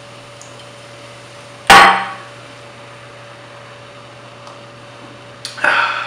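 A glass root beer bottle set down on a granite countertop: one sharp knock with a short ring, about two seconds in. Near the end comes a softer click followed by a brief rustling noise.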